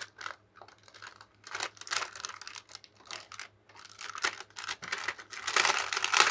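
Handling of a power supply's packaging: scattered small clicks and taps, then a denser, louder rustle starting about five and a half seconds in as the unit and its wrapping are lifted out of the box.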